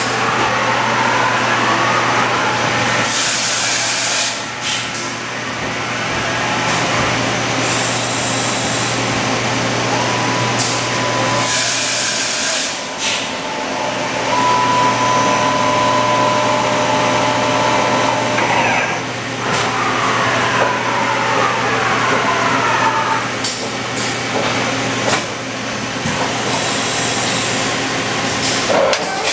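Mori Seiki MV-65/50 CNC vertical machining center running under power. A steady machine hum drops out briefly near the middle, whining tones rise and fall or hold for a few seconds, and metallic clanks come now and then.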